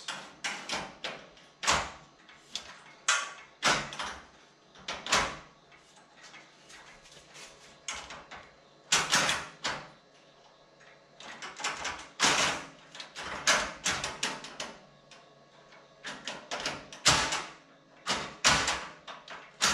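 Steel Dell ReadyRails sliding server rail being pushed and worked against a threaded rack post: irregular metal clicks and clanks with a few longer sliding rasps. The rail's latch is not locking into place.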